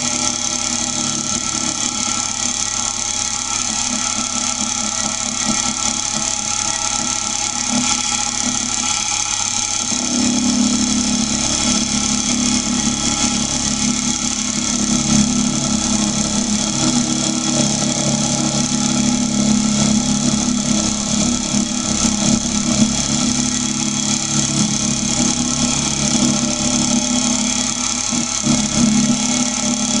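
Drill press motor and spindle running steadily with a milling cutter, the machine being used as a makeshift milling machine on metal. About ten seconds in, the lower hum grows stronger and stays so.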